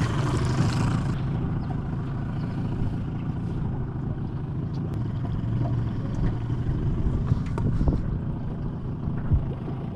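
Boat motor running steadily at low speed, a low hum. A brighter hiss stops about a second in, and there are a few light knocks later on.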